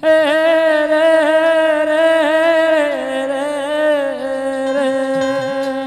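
A male singer holding one long note in a Gujarati devotional folk song, starting suddenly out of a quiet gap. The note wavers with small ornaments, then steps down in pitch about three and four seconds in and holds steady.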